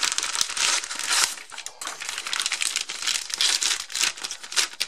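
Thin clear plastic bag crinkling and rustling in quick, irregular crackles as it is handled and opened.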